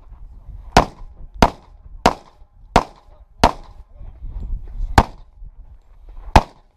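Handgun shots fired in a USPSA practical pistol stage: seven sharp shots, the first five about two-thirds of a second apart, then a pause of about a second and a half before the sixth and a final shot near the end.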